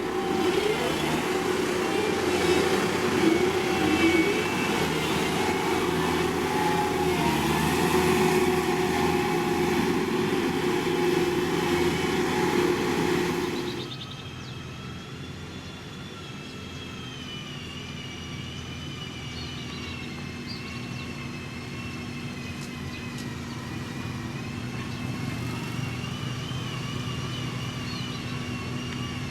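Diesel engines of heavy road-building machinery running. About halfway through, the sound changes abruptly from a loud, rough engine noise to a quieter, steady engine drone.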